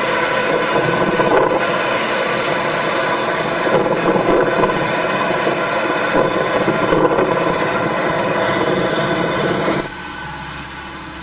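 Heavy farm machine's engine running steadily under load, then cutting abruptly to a quieter running engine near the end.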